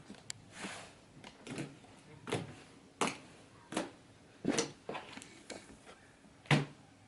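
Slime being squished and kneaded by hand, giving an irregular string of short wet squelches and pops, the loudest near the end.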